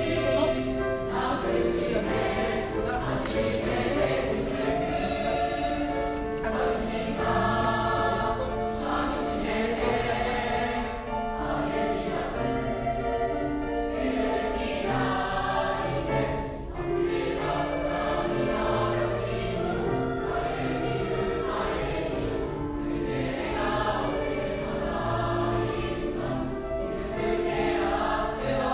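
Choir singing a slow piece with accompaniment, sustained notes changing chord every second or so.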